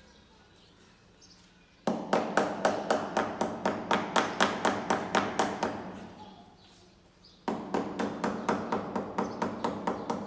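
A skirting tile being tapped with a hammer to bed it into the mortar behind it: two runs of quick, even taps, about three to four a second, each with a short ringing tail. The first run starts about two seconds in and lasts about four seconds; the second starts a little past halfway and carries on to the end.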